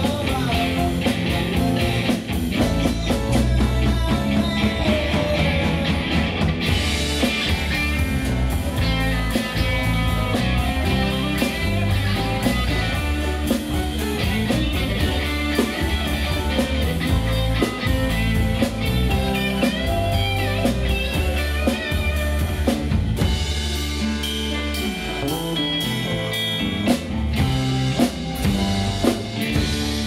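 Band playing blues-rock: guitar over a drum kit with cymbals and a moving bass line.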